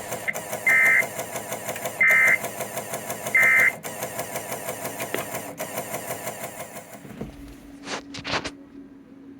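Emergency Alert System end-of-message data bursts: three short, shrill warbling digital tones about a second apart, marking the close of the alert. They sit over a steady rhythmic ticking. Near the end come a few sharp clicks, and the background drops to a low hum.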